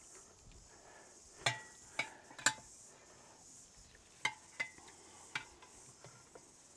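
Metal rotisserie spit and prongs clinking against a stainless steel tray while being pushed through a whole chicken: about six sharp clinks in two clusters, some ringing briefly.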